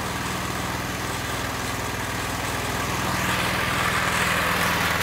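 Small single-cylinder petrol engine with a GEET fuel processor running steadily, with a hiss that grows louder from about three seconds in. By the owner's exhaust readings the GEET system is not working, so the engine is burning its fuel like an ordinary carburetted engine.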